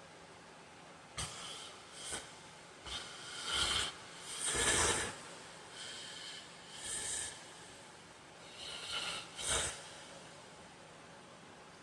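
A sleeping man snorting and breathing noisily in a run of short, irregular, breathy bursts, some with a sharp start. The loudest comes about four to five seconds in, and the bursts stop about ten seconds in.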